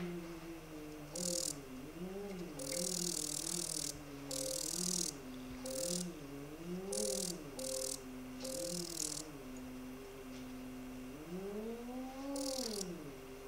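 Zeiss Visalis 100 phacoemulsification machine's audio feedback tone during nucleus removal. The pitched tone steps and bends up and down as the aspiration vacuum changes, swelling up and back down near the end. Repeated short bursts of high hiss come between the tones.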